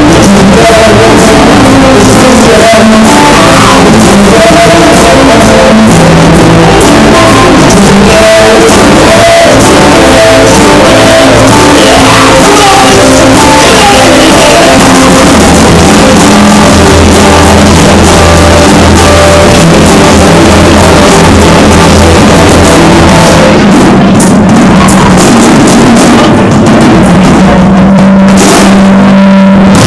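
Rock band playing very loud, with drums, instruments holding long notes and some sung or shouted vocals.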